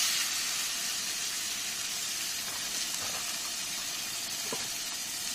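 Steak searing in hot butter in a frying pan over high heat, a steady sizzling hiss that eases slightly over the seconds after the meat goes in.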